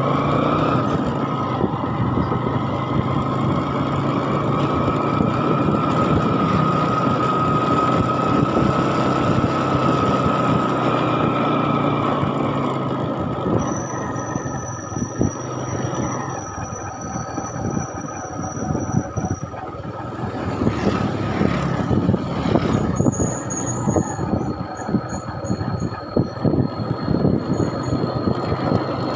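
A vehicle driving along a rough village road: steady engine and road noise with a whine in the first half. Short knocks and rattles from bumps in the road surface follow in the second half, along with a high, evenly pulsing chirp.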